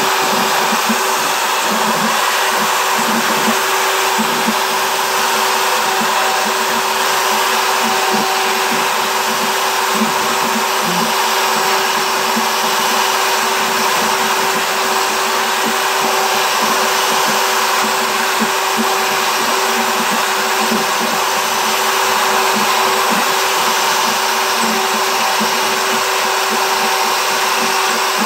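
Router on a CNC machine running at a steady high speed, a constant whine with a hiss, as its bit engraves letters into a wooden board.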